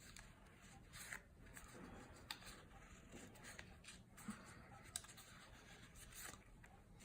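Faint rustling and a few soft clicks of cardstock being handled and folded along its score lines.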